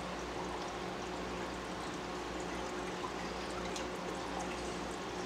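Aquarium hang-on-back filter outflow pouring steadily into the tank water, a continuous trickling splash with a few faint drips.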